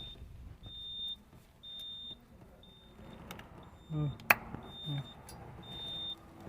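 Electronic warning beeper sounding a single high tone in short beeps about once a second, with a sharp click about four seconds in.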